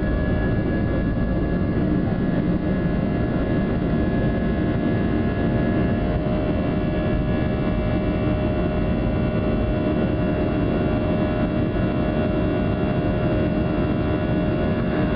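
Airbus A320's jet engines at takeoff thrust, heard inside the cabin beside the wing: a steady roar with several steady whining tones, as the plane lifts off the runway and climbs.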